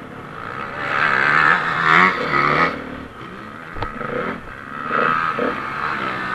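Dirt bike engine revving up and easing off as it rides, loudest about one to three seconds in and again around five seconds in. A single sharp click just under four seconds in.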